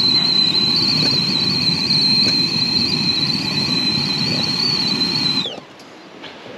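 Whistling kettle on a gas canister camping stove at a full boil, giving one steady, slightly wavering high whistle over a rushing noise. About five and a half seconds in, the whistle slides down in pitch and stops, leaving a much quieter hiss.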